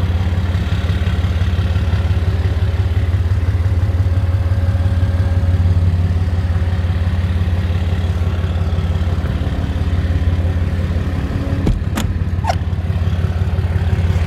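Dodge service truck's diesel engine, its DPF deleted, idling steadily. Two or three sharp clicks sound about twelve seconds in.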